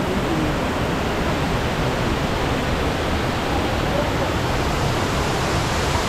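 Waterfall and rocky cascade rushing, a loud, even wash of falling water.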